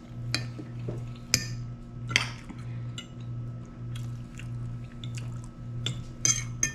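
Metal forks clinking and scraping on plates as two people eat, with a few sharp clicks about half a second, one and a half, and two seconds in and a cluster near the end, over a steady low hum.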